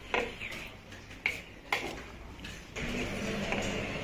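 A steel spoon clinks a few times against a steel plate of rice. A steady background noise comes in at about three seconds.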